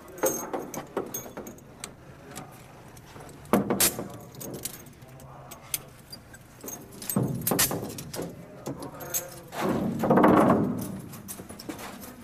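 Steel handcuffs being unlocked with a handcuff key: repeated small metallic clicks and jingling of key and cuff chain, with a louder clattering noise about ten seconds in.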